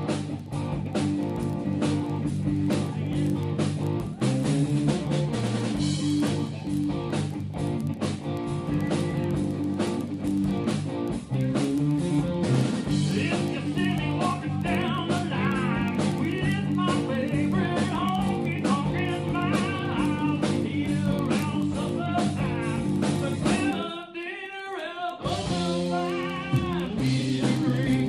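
A band playing blues-rock, with guitar and a steady beat. A singer comes in about halfway through, and the low end drops out for about a second near the end before the full band returns.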